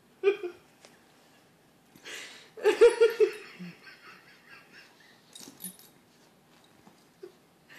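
Laughter: a short laugh just after the start, then a louder run of quick giggles about three seconds in.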